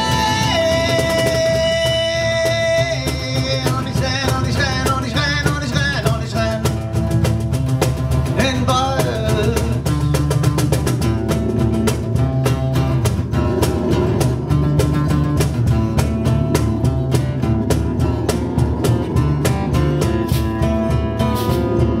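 Live acoustic band playing an instrumental passage: strummed acoustic guitar with congas and bongos keeping a steady rhythm. Over the first ten seconds there is a long held wordless vocal note, then wavering vocal phrases.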